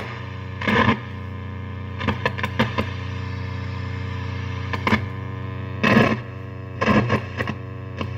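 1949 Philco 50T-1403 television's speaker giving a steady distorted buzz: the vertical sweep heard in the audio. Several short, loud bursts of crackling noise break through it, the loudest about six seconds in.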